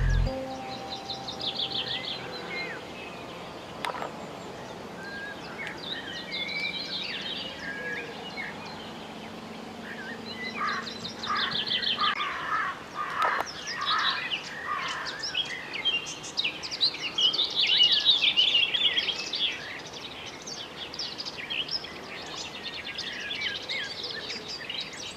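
Several small songbirds singing and chirping in overlapping short trills and calls, sparse at first and busiest in the second half.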